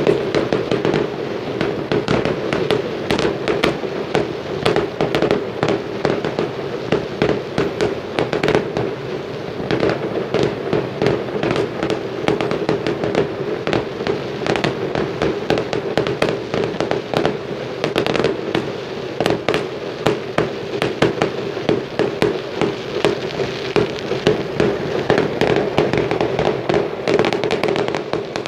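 Aerial fireworks shells bursting in a dense, unbroken barrage: many sharp bangs and crackles a second, with no pause.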